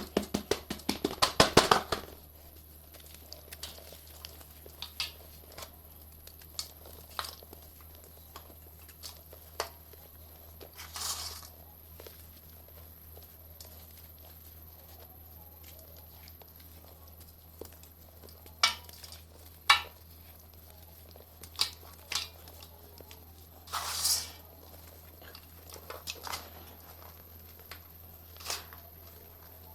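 Dried brown mud or clay crunching and crumbling: a rapid run of crunches for the first two seconds, then scattered single cracks and short crumbling rustles.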